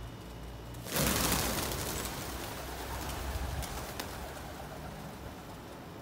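A flock of feral pigeons taking off all at once about a second in, flushed by a cat. It is a loud whirring clatter of many wings that trails off over the next few seconds, with a few sharp wing claps.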